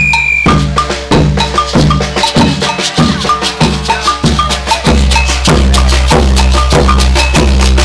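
Batucada percussion ensemble playing a steady, driving beat of drum strikes with shakers. A high held tone stops about half a second in, and deep bass drums come in strongly about five seconds in.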